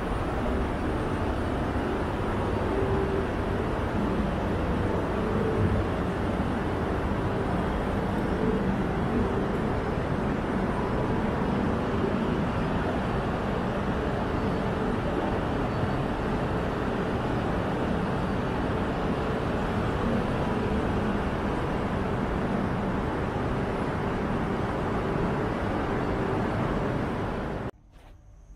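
Steady station-platform noise beside a standing Shinkansen train, with a faint steady hum underneath. It drops away abruptly near the end.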